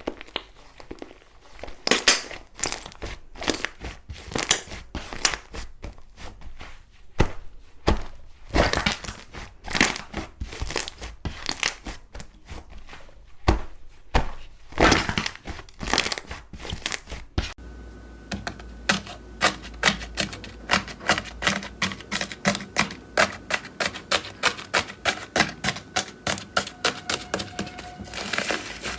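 Slime being squeezed and pressed by hand, giving irregular sharp crackles and pops. About two thirds of the way in it changes to a fast, even run of clicking pops, about four a second.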